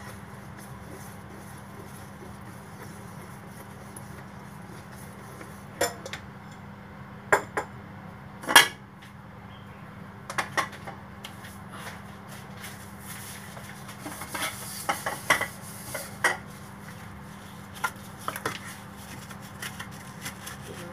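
Metal wire whisk knocking and clinking against a stainless steel mixing bowl of cake batter, in scattered taps with a short flurry about two-thirds of the way through, over a steady low hum.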